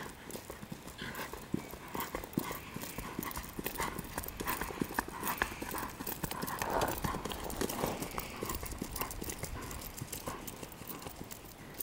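Hoofbeats of a Tennessee Walking Horse gelding under a rider, clopping on gravel, growing louder in the middle as the horse comes closest.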